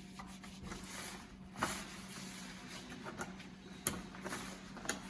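Faint handling sounds of a Yale door lock's battery cover being worked loose after its screw is undone with an Allen key: light scraping and a few small clicks, the sharpest a little before four seconds in.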